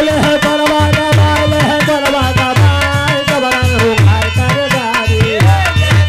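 Holi folk song (phagua): a dholak drum beats a steady rhythm under harmonium, while a male voice holds one long note for about the first four seconds and then drops away into the accompaniment.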